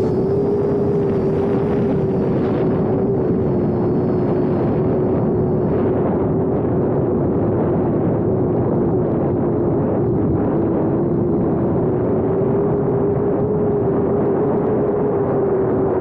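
Parrot Bebop 2 quadcopter's motors and propellers heard close up from on board: a steady hum holding nearly one pitch, over heavy rushing wind noise in gusty air.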